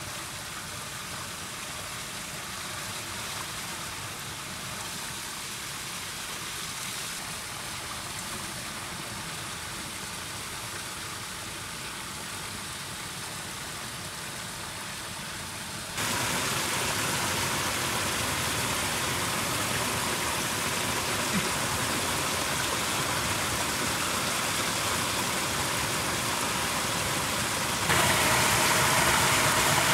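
Water pouring over a dirt bank into a shallow muddy ditch, a steady rushing that turns suddenly louder about halfway through and again near the end.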